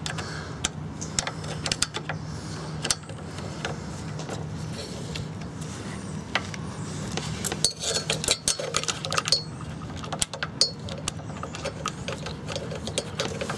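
Scattered small metallic clicks and taps of a screwdriver and fingers working on a small engine's carburetor, busiest about eight seconds in, over a steady low hum.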